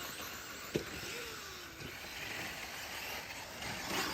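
Electric 1/10-scale RC short course trucks running on a dirt track, with a sharp knock about a second in and the noise of the trucks swelling near the end.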